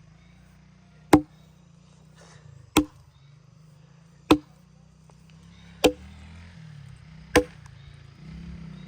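Axe chopping a dry log by hand: five or six sharp, single blows evenly spaced about every second and a half.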